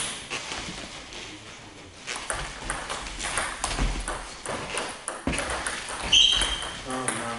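Table tennis rally: the ball clicks sharply and quickly off the bats and the table for about three seconds, then stops. A short high squeak follows near the end.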